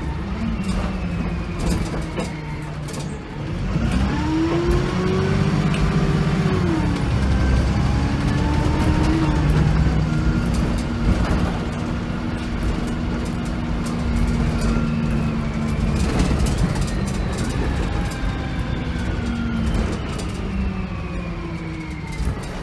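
Inside a VDL SB200 Wright Commander single-deck bus under way. The diesel engine note rises as the bus pulls up through the gears about three to four seconds in, rises again after a shift, and then holds a steady cruise. In the last several seconds a whine slowly falls as the bus eases off.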